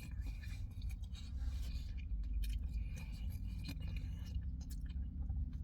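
Close-up chewing of a crusty soft pretzel, a string of small crackles and scrapes over a steady low hum.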